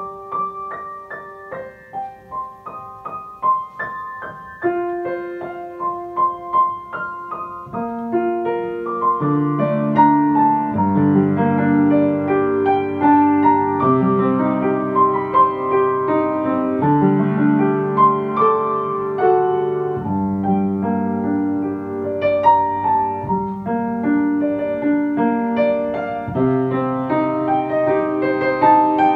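Slow, gentle ambient piano music: a sparse melody of single notes, filling out with lower notes about eight seconds in and deep held bass notes from about ten seconds in.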